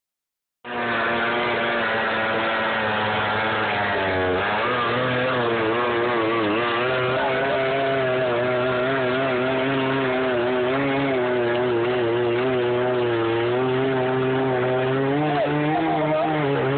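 Chainsaw engine running as it cuts into a tree trunk, its pitch dipping and recovering as the chain takes the load.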